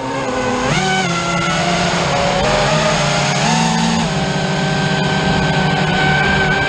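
A motor running steadily, its pitch holding and then shifting up or down in steps every second or so, as with throttle changes.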